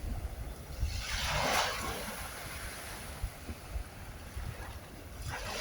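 Ocean waves washing onto the shore: one wave surges and hisses about a second in and fades, and the next starts building near the end. A low wind rumble on the microphone runs underneath.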